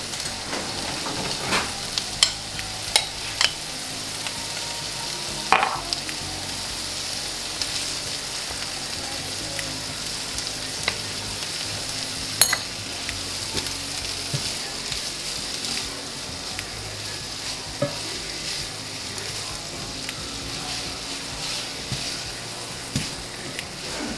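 Sliced onions and green vegetables sizzling steadily in a skillet as they are stirred and tossed, with a few sharp clicks of utensils knocking against the pan.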